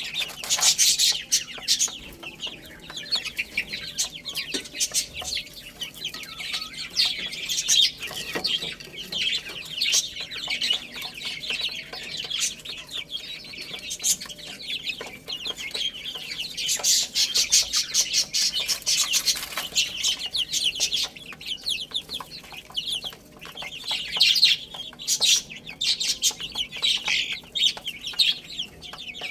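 A flock of baby chicks peeping continuously, many high-pitched calls overlapping, swelling louder and easing off several times.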